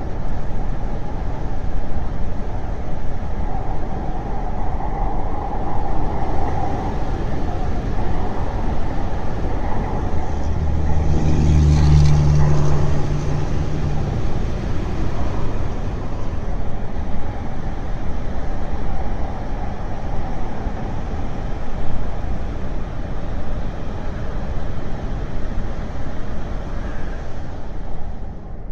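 Steady roar of road traffic. A heavy vehicle's engine drones louder for a few seconds, about eleven to fourteen seconds in.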